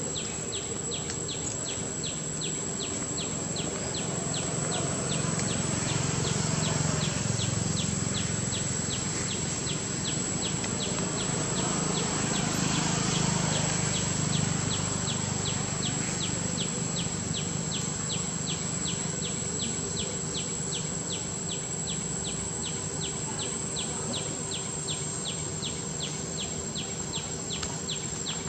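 Insects droning steadily in a high, even tone, with a high chirp repeating evenly a little over twice a second. A lower buzz grows louder in the middle and then fades.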